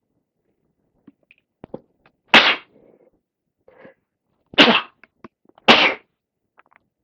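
Three sneezes from a person with a lingering head cold, heavily congested: one about two seconds in, then two more close together near the end.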